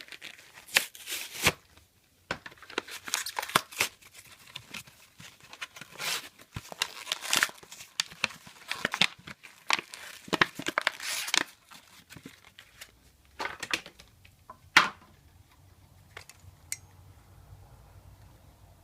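Plastic crinkling, rustling and clicking as a Rubik's Cube is handled, busy for the first eleven seconds or so, then thinning to a few separate clicks, with one sharp click about fifteen seconds in.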